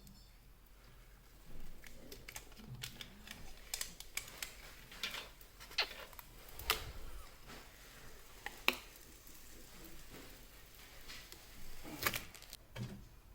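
Hands handling a new mini-ITX PC case and its parts: scattered sharp clicks and taps on metal and plastic, with a few short rustling scrapes.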